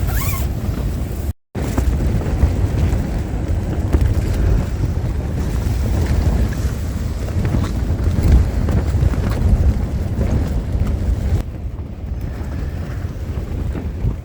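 Gale-force wind buffeting the microphone in heavy, rumbling gusts. It cuts out to silence for a moment about a second and a half in, then picks up again, a little softer near the end.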